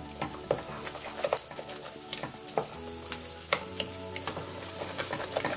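Slotted spatula stirring thick saffron risotto in a stainless steel pot, with a wet churning of the rice and scattered scrapes and taps against the pot, as cold butter cubes are worked in for the mantecatura.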